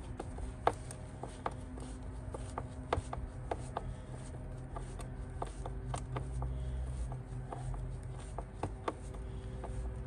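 Hand screwdriver driving Phillips screws into a plastic air filter housing lid: irregular small clicks and scrapes of the tool and screws against the plastic, over a steady low hum.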